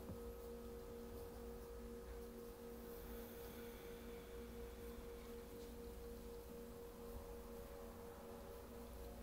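Faint background drone of several steady ringing tones, like a singing bowl, with the lowest tone pulsing slowly, over a low hum.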